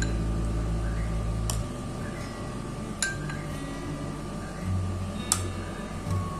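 A metal spoon clinking against glass three times, sharp and brief, as custard is scooped from a glass bowl and spooned into a glass tumbler.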